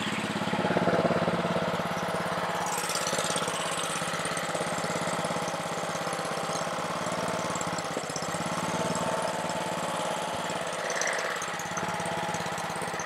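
Honda engine on a Ryobi 3100 PSI pressure washer running steadily with the choke on. It keeps running only on choke, which the owner takes for a carburetor issue.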